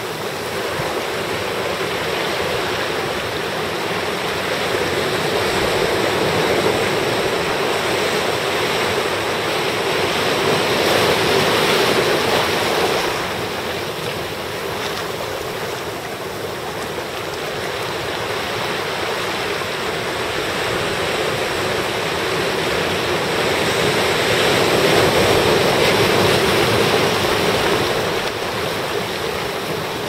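Ocean surf washing in over shoreline rocks: a continuous rush of water that swells as waves come in, louder about ten seconds in and again a few seconds before the end, with a calmer lull in between.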